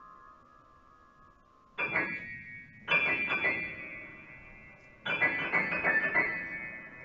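Grand piano played: after a chord dies away, three loud groups of struck notes come about two, three and five seconds in, each a quick flurry of notes left to ring and fade.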